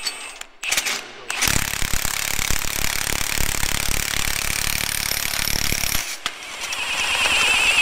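Impact wrench hammering a nut on a cultivator shank's spring rod for about four and a half seconds, then a high whine that wavers in pitch.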